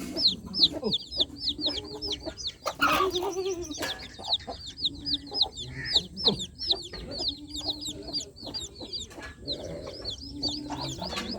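A brood of baby chicks peeping continuously: many short, high, downward-falling peeps, several a second, overlapping. Lower, shorter calls from a hen clucking run beneath them.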